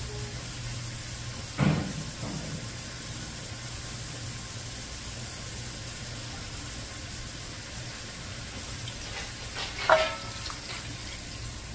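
Metal cookware clanking twice, once about two seconds in and again near the end, the second clank ringing briefly, over a steady low hiss and hum.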